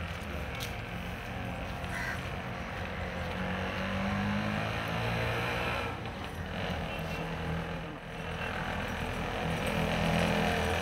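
Street traffic: motor vehicle engines running and passing, with a low engine hum that swells twice, about four seconds in and again near the end.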